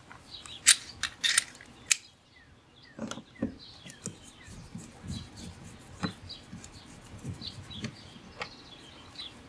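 A few sharp clicks in the first two seconds, then light metallic ticking and scraping as a Phillips screwdriver works out the screw behind a rear door's inside handle.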